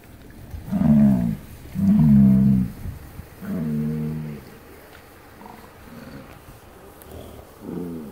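American bison bellowing: three deep, drawn-out grunting calls in the first four seconds, some dropping in pitch, and a shorter one near the end.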